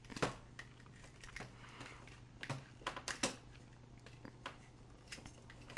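Plastic parts of a Transformers Deluxe Class Cybertron Mode Ratchet action figure being handled and folded during transformation, giving irregular small clicks and snaps as joints turn and pieces peg into place.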